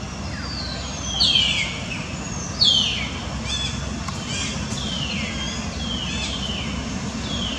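Repeated high animal calls, each sliding quickly down in pitch, coming about once or twice a second and loudest near the start, over a steady low rumble.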